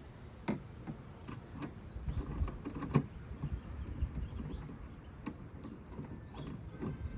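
Irregular small clicks and taps from hand work on a car taillight's mounting screw and plastic housing, the loudest about three seconds in, over a low rumble of wind buffeting the microphone.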